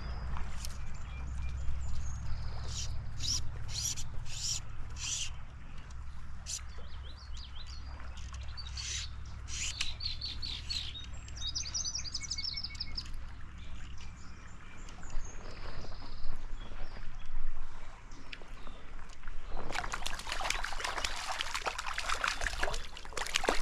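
Birds chirping repeatedly over a low steady rumble. In the last few seconds, a loud splashing as a brown trout takes a dry fly at the surface and thrashes.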